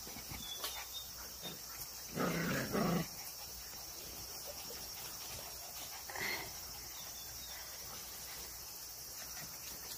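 Jindo puppies at play: two short barks about two seconds in, followed by a fainter yip around six seconds. A steady high insect buzz runs underneath.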